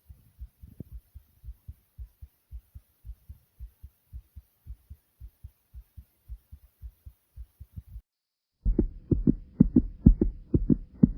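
Fast heartbeat: quick, regular low thumps, faint at first. About eight seconds in it breaks off for half a second, then returns much louder with a faint steady hum beneath it.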